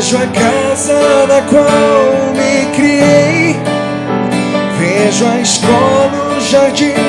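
Man singing into a microphone over strummed acoustic guitar.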